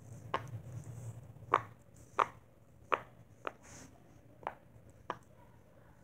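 Bubbles of a round silicone pop-it fidget toy being pressed through one by one with fingers, giving about seven separate sharp pops at an uneven pace on its second side.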